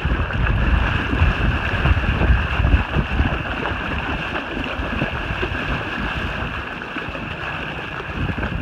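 Water splashing and sloshing as a large dog wades through shallow water towing a small kayak on a rope, with wind buffeting the microphone, heaviest in the first three seconds.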